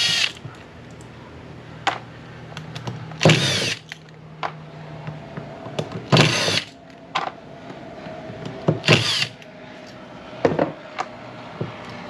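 Power drill-driver spinning in four short bursts about three seconds apart, each with a whine that rises and falls in pitch, followed by a few shorter bursts and clicks. It is backing out screws while a carburetor is taken off a motorcycle carburetor bank.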